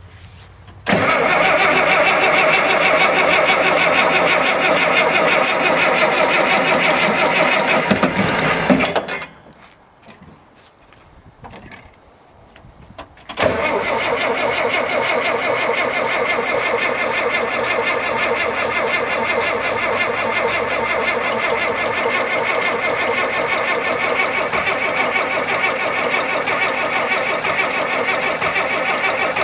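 Caterpillar D5B dozer's diesel engine being cold-started: about eight seconds of cranking and engine noise, a pause of about four seconds, then a second long, even burst of engine noise from about thirteen seconds in.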